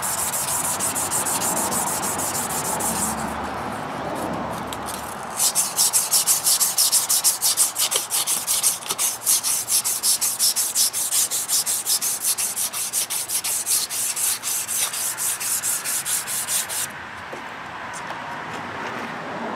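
Emery cloth rubbed back and forth by hand on a steel engine shaft, polishing off surface rust. It rubs briskly at first, eases off for a couple of seconds, then settles into even strokes at about three a second before stopping near the end.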